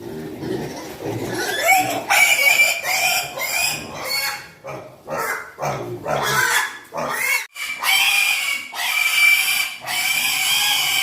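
Piglets squealing: low grunts at first, then repeated loud, high-pitched squeals from about two seconds in, drawn out into longer squeals near the end.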